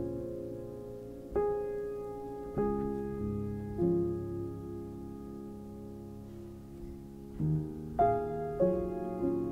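Slow, gentle piano background music: notes and chords struck a second or so apart and left to ring out, a long held chord in the middle, and a quicker few notes near the end.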